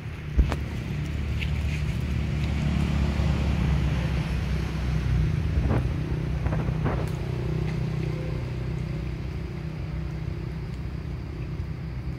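A steady low rumble, with one sharp knock about half a second in and a few faint clicks around the middle.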